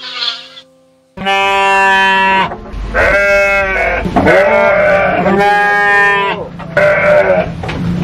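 Sheep bleating: five long bleats one after another, starting about a second in.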